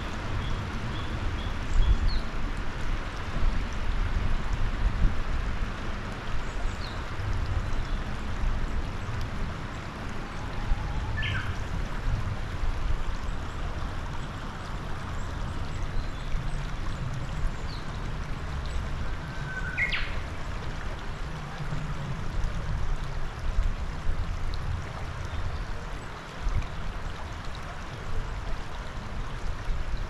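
Shallow mountain river running over a stony bed: a steady rush of water. A few short bird calls sound over it: a quick run of notes at the start, then single calls about a third and about two-thirds of the way through.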